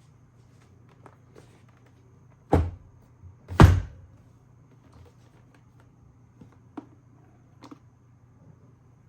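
Two heavy thunks about a second apart, then a few light clicks and taps, over a low steady hum.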